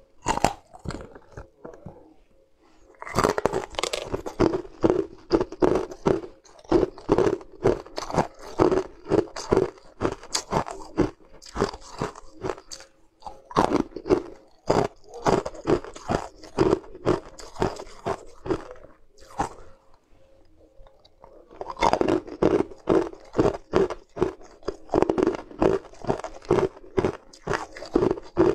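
Close-miked crunching of hard, sweet coloured ice as moulded snowflake-shaped pieces are bitten and chewed: rapid crunches, a few a second, softer for the first few seconds and pausing briefly about two-thirds of the way through.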